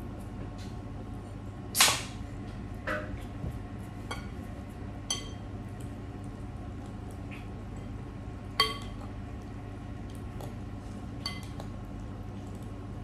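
A metal fork clinking against a glass bowl as noodle soup is stirred and mixed: about half a dozen separate clinks, some ringing briefly, the loudest about two seconds in, over a steady low hum.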